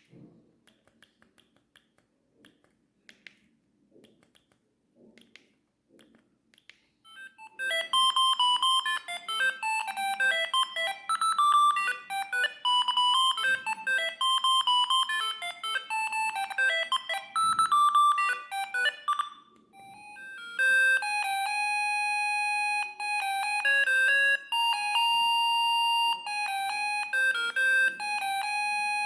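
Siemens S45i mobile phone playing ringtones through its speaker. The first is a melody of quick electronic notes that starts about seven seconds in and breaks off near twenty seconds; after a short pause a second ringtone follows with longer held tones. Before the first one, faint clicks.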